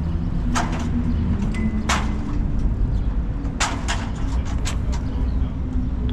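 Several sharp metallic clanks, spaced irregularly over a few seconds, as a firefighting ground ladder and its poles are handled, over a steady low rumble.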